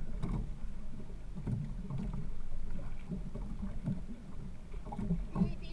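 Sea water lapping and slapping against the hull of a small boat, in irregular low knocks.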